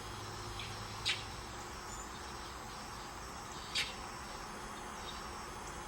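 Outdoor ambience of insects chirring steadily over a low hum, with two short high chirps, about a second in and just under four seconds in.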